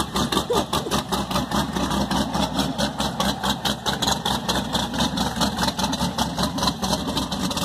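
Boss Hoss motorcycle's car-derived engine idling, the exhaust pulsing rapidly and evenly at a steady level.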